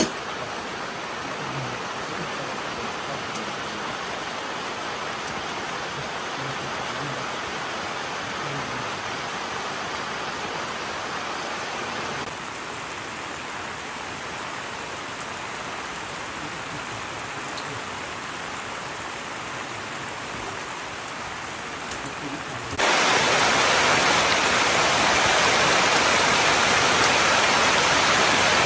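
Steady rain falling, an even hiss. About 23 seconds in it becomes abruptly louder.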